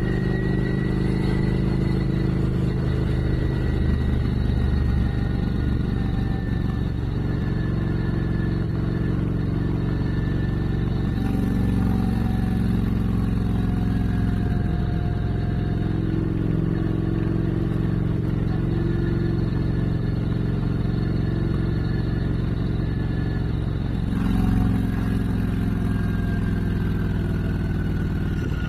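Motorcycle engine running while riding on the road, with wind and road noise. The engine note changes about eleven seconds in and again near twenty-four seconds.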